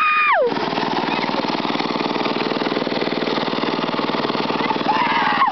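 Wheel Horse riding mower's small engine running steadily as it rolls down a grassy slope. Over it, a long, high-pitched yell is held and then drops away about half a second in, and there is a brief shout near the end.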